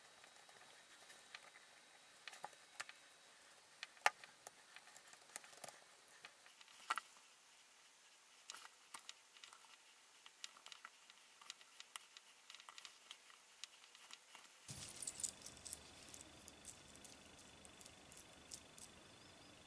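Faint metallic clicking and jingling of small chainmail rings being opened, closed and moved with needle-nose pliers, in irregular sharp ticks. About three-quarters of the way in a low steady hum comes in under the jingling of the mail being handled.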